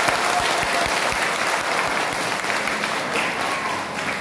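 A crowd applauding, dense clapping that eases off near the end.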